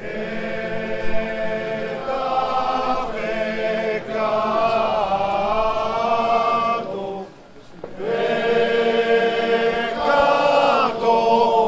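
A choir singing a chant in long held notes, with a break of about a second midway.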